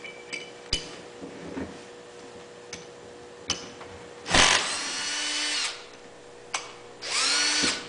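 Milwaukee 18-volt cordless drill with a socket drive, run in two short spurts to loosen a 3/8-inch bolt. After a few light clicks, it starts loudly about four seconds in and spins with a steady whine for over a second. Near the end it runs again for under a second, its whine rising as it speeds up.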